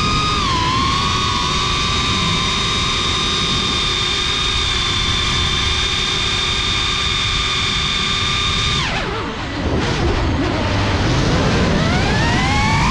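FPV quadcopter's brushless motors and propellers whining at a steady high pitch, with wind noise rushing over the onboard camera. About nine seconds in the whine falls away steeply as the throttle is cut, then climbs again near the end as the motors spool back up.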